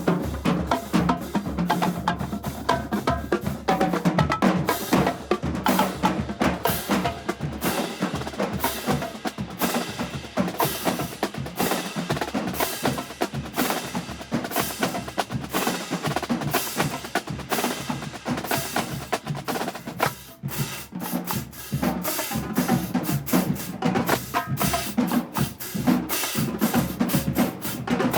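Marching band drumline playing, snare drums and bass drums in a fast, dense rhythm, with a brief drop about twenty seconds in.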